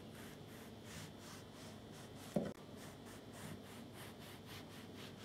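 Steel cleaver slicing an orange into thin rounds on a wooden board: a quick series of faint, crisp cutting strokes, several a second. One louder low thump comes about two and a half seconds in, as the blade or hand knocks the board.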